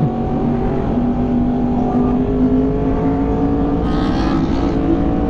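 Yamaha YZF-R1 sport bike's inline-four engine pulling under steady throttle while riding, its pitch rising slowly.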